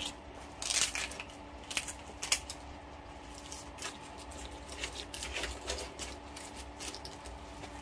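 Kitchen scissors snipping through the crackling skin of crispy lechon kawali (deep-fried pork belly), a series of sharp crunchy snips, the loudest about a second in. A faint steady hum runs underneath.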